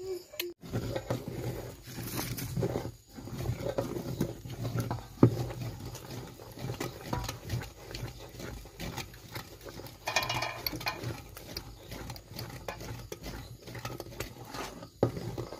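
Kithul palm sap boiling down into thick jaggery syrup in an aluminium pot, bubbling and sloshing as it is stirred with a paddle, with many small irregular clicks and one sharper knock about five seconds in.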